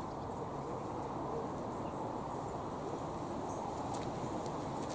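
Outdoor background noise: a steady low rumbling hiss, with a few faint, brief high chirps and ticks.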